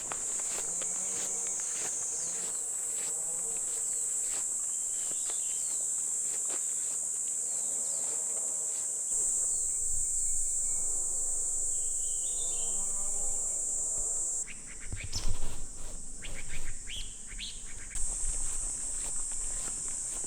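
Steady, high-pitched insect chorus. Several louder knocks and rustles come in a cluster about three-quarters of the way through.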